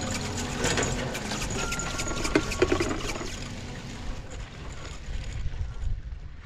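Skis sliding and scraping over packed snow, with sharp clicks and a scrape that is loudest about two and a half seconds in. Wind rumbles on the camera microphone underneath, and a faint steady hum sounds in the first couple of seconds.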